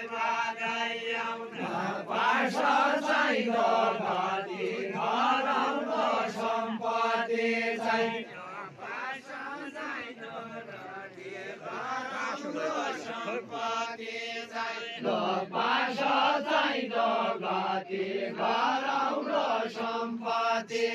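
Men's voices singing a Deuda folk song together, a chanted melody in repeated phrases.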